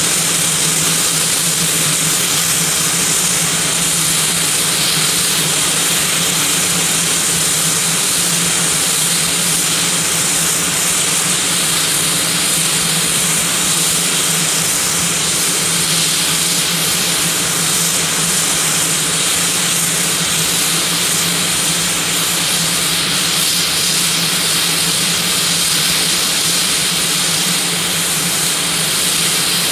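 Basler BT-67's twin Pratt & Whitney Canada PT6A-67R turboprop engines idling on the ground: a steady, loud turbine hiss over a low, even hum.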